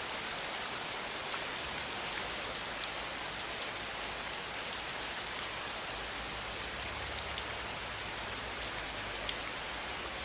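Steady rain, an even hiss with occasional faint drop clicks.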